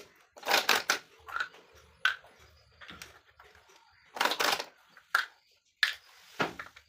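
Hand-lever cap punching press crimping metal caps onto LED bulb bodies: an irregular series of sharp clicks and clacks as the lever is worked and the parts are seated, with clusters of strokes about half a second in and again about four seconds in.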